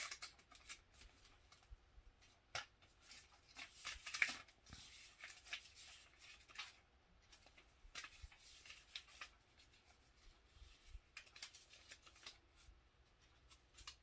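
Paper rustling as the pages of an instruction booklet are handled and turned, in short, scattered bursts.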